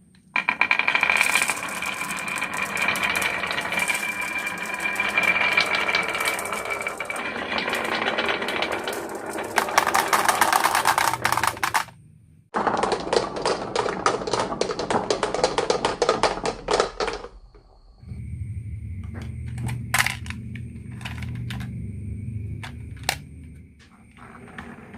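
Marbles clattering and rattling quickly down a wooden marble-run track, in dense runs of rapid clicks. The sound cuts off abruptly about twelve seconds in and again about seventeen seconds in. The last stretch is quieter: a low hum with a few scattered sharp clicks.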